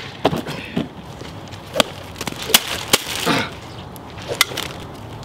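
Irregular sharp clicks and knocks, about eight of them, with short vocal sounds such as exclamations or laughter between them.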